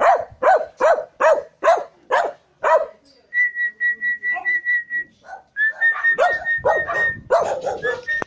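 A puppy barking in a steady run, about two and a half barks a second. The barks stop a few seconds in and give way to a high, steady whistle-like tone, which breaks off and comes back. The barking starts again beneath it.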